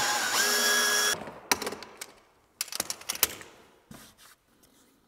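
Drill boring a pocket hole through a Kreg pocket-hole jig into a timber stair tread. The motor whine sags in pitch under load, cuts out for a moment, spins back up and stops about a second in. A few scattered sharp clicks and knocks follow.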